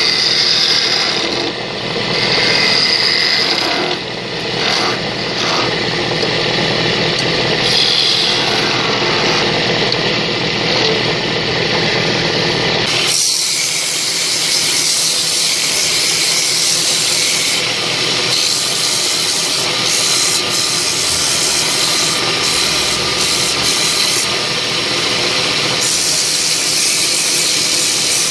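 Wood lathe running while a hand-held turning tool cuts a spinning wooden spindle: a steady hiss of cutting over the machine's running sound. About halfway through the sound changes abruptly and becomes brighter and hissier.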